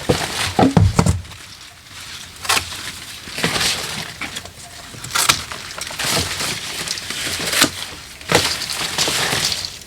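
Irregular crunching and snapping from garden work, a string of separate sharp cracks and rustles spaced a second or more apart.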